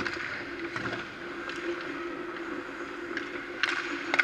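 Hockey skates scraping and gliding on the ice, with sharp clicks of sticks and pucks, the loudest near the end, over a steady low hum in the rink.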